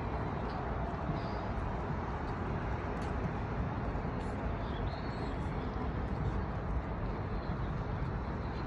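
Steady outdoor ambience of distant highway traffic, an even noise heaviest in the low end, with a few faint short high chirps.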